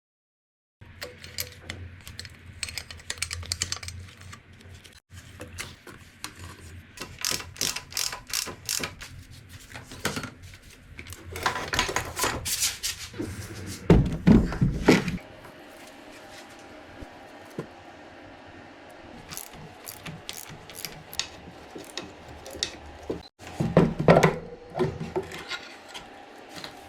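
Hand tools working on a Dnepr motorcycle engine: an irregular run of metallic clicks, clinks and ratchet-like rattling. Heavier clunks come about halfway through and again near the end, and the sound breaks off abruptly in places, as between separate clips.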